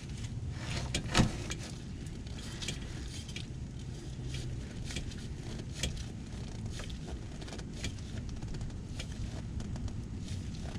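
Gloved hand gripping and turning a new spin-on oil filter by hand to tighten it: faint scattered clicks and rubbing, with a louder click about a second in, over a steady low hum.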